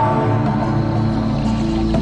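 Background music of slow, held chords.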